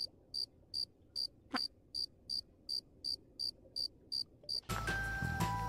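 Cricket chirping sound effect: short, even chirps at about three a second, the stock 'awkward silence' gag after a bad joke. Music starts near the end.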